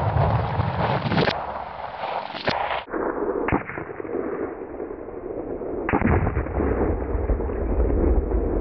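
Four sharp bangs of AR-15 rifle fire and an exploding binary star target, spread over several seconds. The last bang is followed by a heavy low rumble.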